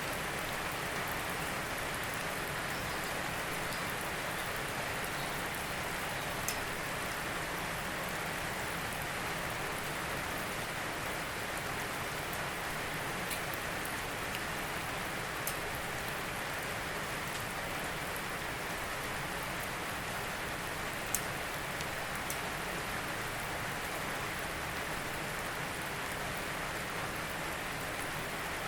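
Steady rain falling, an even hiss with a few sharper single drop ticks now and then.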